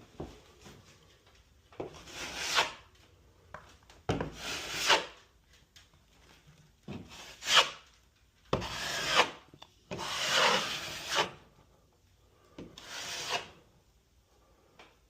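Drywall being worked by hand, most likely cut with a utility knife: six drawn-out scraping strokes of about a second each, irregularly spaced with short pauses between them.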